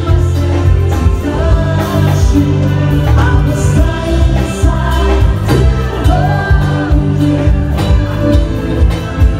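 Live pop cover band playing, with singers over electric guitar, keyboard and a heavy bass line on a steady beat.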